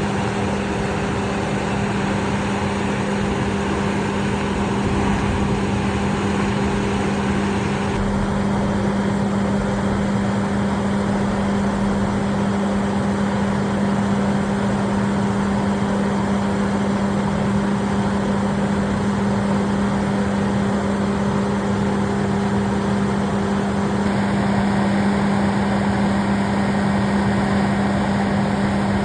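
Heavy utility work-truck machinery running steadily at a worksite, a constant engine drone with a steady hum.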